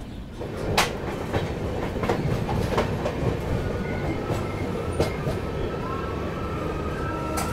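Indian Railways express train coaches running over the track, heard from the open coach door: a steady wheel rumble with sharp clickety-clack at irregular intervals over rail joints, the loudest about a second in. From about halfway a thin high wheel squeal joins in as the train takes the curve.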